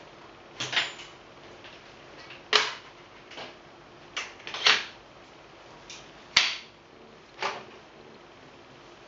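Strida LT folding bicycle being unfolded: a string of sharp clicks and clunks from its frame joint, latches and folding handlebars, spaced irregularly, the loudest a little over two and a half seconds in and again about six and a half seconds in.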